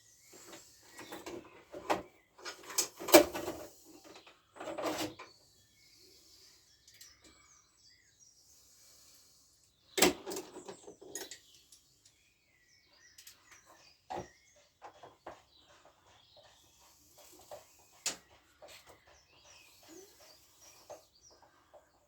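Irregular clanks, knocks and rattles of metal tools and scooter parts being handled, the loudest about three seconds in and again about ten seconds in, with birds chirping in the background.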